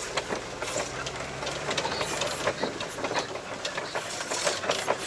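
Wheeled all-terrain vehicle on low-pressure tyres driving through deep snow: the engine runs with a low steady hum under a dense, irregular rattling and clatter.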